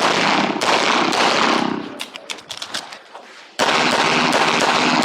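Rapid pistol fire from a 9mm CZ Tactical Sport on an IPSC stage: quick strings of shots, about four a second, with a heavy echo. A short pause with faint clicks comes about two seconds in, then the rapid firing starts again.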